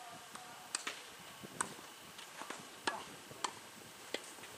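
Tennis ball being struck by rackets and bouncing on the court during a doubles rally: about six sharp, separate knocks spread over a few seconds.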